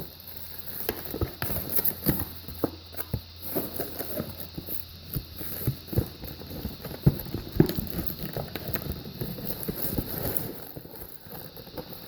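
A cardboard box being opened and its packaging handled to get a car speaker out: irregular knocks, taps and rustles of cardboard and plastic.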